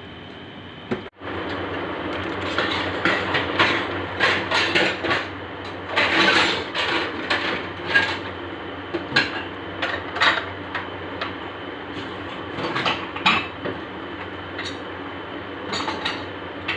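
Kitchen clatter: metal pots, pans and utensils clinking and knocking in an irregular string of sharp strikes over a steady hum.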